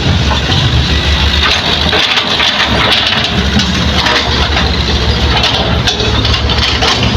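Heavy diesel earthmoving machinery running steadily, a low engine drone with a hiss above it and a few short knocks scattered through.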